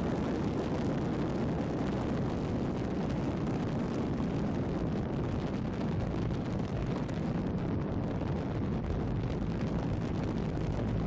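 Steady wind rush and road noise on a camera riding a Honda Silver Wing GT600 scooter at cruising speed, with a low engine drone underneath.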